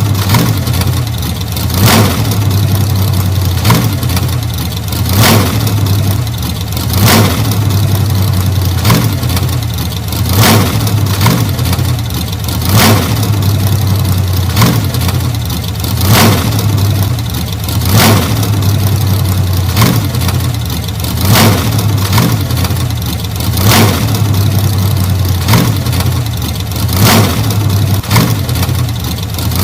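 1940 Ford's flathead V8 engine running steadily, with a sharp crack about every two seconds.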